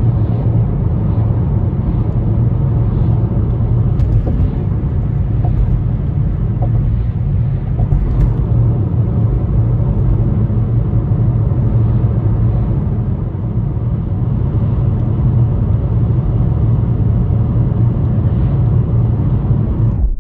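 A car driving at highway speed: a steady low rumble of tyre, road and engine noise, heard from inside the cabin, which cuts off suddenly at the end.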